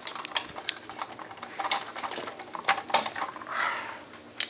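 A metal key scraping and clicking in the lock of an Adams elevator panel's key switch as it is worked in, many small irregular clicks.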